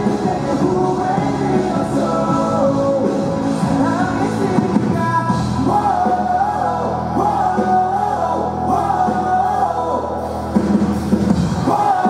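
Live rock band playing electric bass, guitar and drums with a male voice singing, in the echo of a large hall. From about halfway, low bass notes are held steadily, then drop out just before the end.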